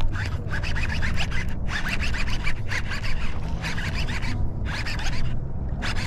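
Scratchy rubbing and rustling close to the microphone, in rapid irregular strokes with a few short pauses, over a steady low hum.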